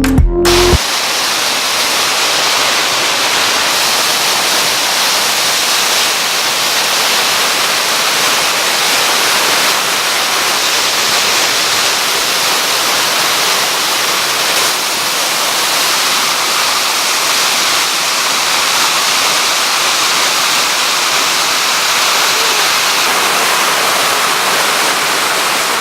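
Waterfall, its falling water rushing in a loud, steady roar without let-up.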